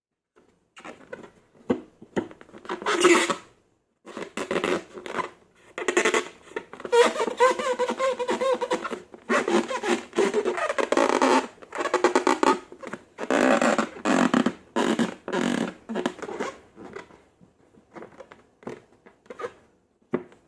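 Long rubber balloons and slime being squeezed and worked by hand: irregular squelches and wavering, fart-like rubbery squeaks with short scratchy clicks between them. The squeaking is densest in the middle and thins to scattered clicks near the end.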